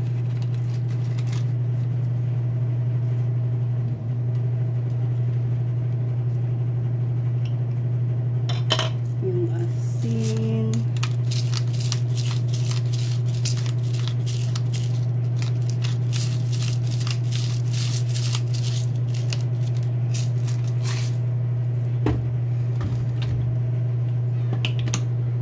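A steady low hum runs under a boiling pot of chicken adobo. Through the middle stretch come many small clicks, crackles and light taps as hands work in the pot and bay leaves go in.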